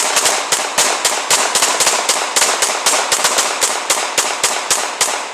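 A Colt .45 and a Glock 17 pistol fired together in a rapid string of about two dozen shots, roughly four to five a second, ending shortly before five seconds in.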